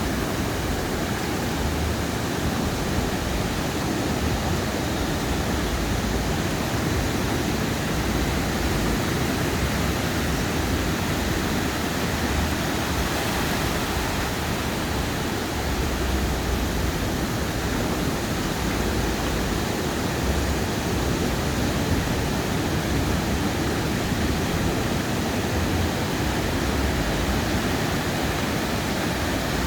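Ocean surf washing onto a sandy beach: a steady, continuous rushing noise with no distinct breaks, and irregular low rumbling underneath.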